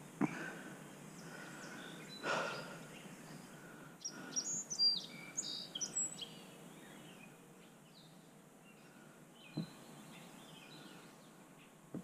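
Songbirds chirping and singing, with a burst of quick high calls about four to six seconds in, over a faint steady outdoor hiss. A couple of short knocks and a rustle come from handling close by.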